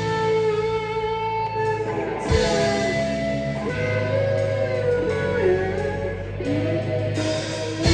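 Live band music: an electric guitar plays held, bending lead notes over a steady bass line, with a few drum hits.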